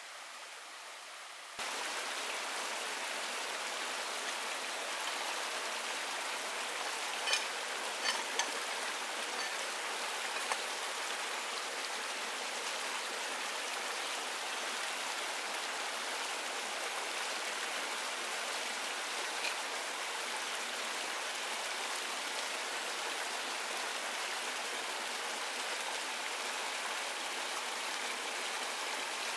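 Shallow stream running steadily over rocks, closer and louder from about a second and a half in, with a few small splashes and ticks as hands work in the water.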